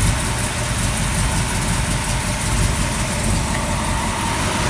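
Small-block Chevy V8 idling steadily with no valve-train ticking. The heads now carry stiffer valve springs, which keep the lifters in contact with the cam.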